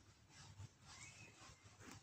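Near silence: faint room tone with a low hum, soft breathy puffs, and one faint, short high note about a second in.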